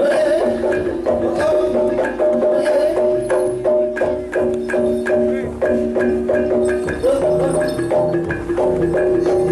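Gamelan music for a jaranan (kuda lumping) horse-dance performance: struck metal keyed instruments and drums playing in an even, busy rhythm under held melodic tones.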